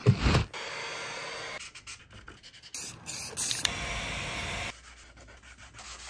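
Sandpaper rubbing and scraping on a 3D-printed plastic case, in several short spells that start and stop abruptly. There is a short knock at the very start.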